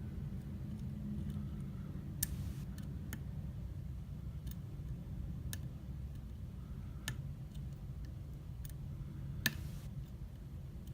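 Light, sharp clicks of a hook pick working the pin stacks of an ILCO rim cylinder under tension, about seven or eight at uneven intervals, the loudest about two seconds in and near the end. A steady low hum runs underneath.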